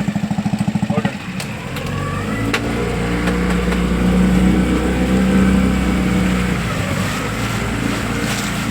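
Motorboat engine: a rapid, even pulsing for about a second, then it settles into a steady run that builds up and holds as the boat gets under way.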